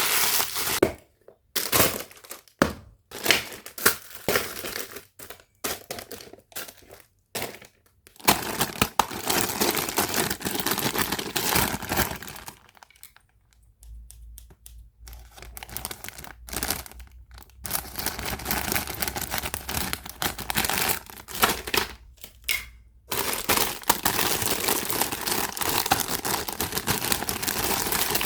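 Plastic toy packaging crinkling and tearing as it is handled and peeled open. It comes as short separate crackles for the first several seconds, then as near-continuous crinkling broken by two brief pauses.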